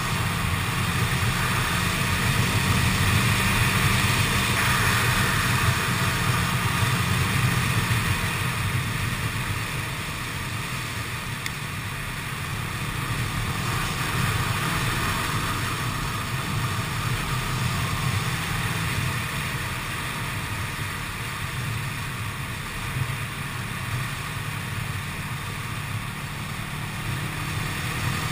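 Kawasaki ER-6n's parallel-twin engine running steadily as the motorcycle rides along, a low drone mixed with wind rushing over the camera. The engine is louder for the first eight seconds or so, then eases off.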